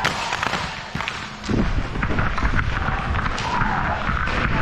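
Hockey play: a sharp clack at the start and scattered knocks of sticks and puck. About a second and a half in, a louder rumbling, scraping noise sets in.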